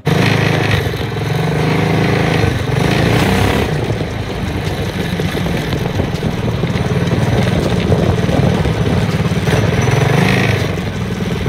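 Go-kart's 212 cc single-cylinder engine with a stage one kit running under load while the kart drives. The engine note rises and falls with the throttle, easing off briefly about four seconds in and again near the end.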